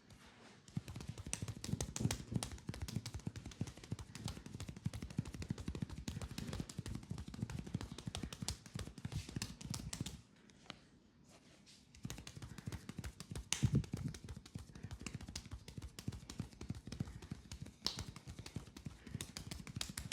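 Rapid hand slaps and taps of a fast percussive leg massage: a dense run of quick strikes on skin, with a break of about two seconds midway.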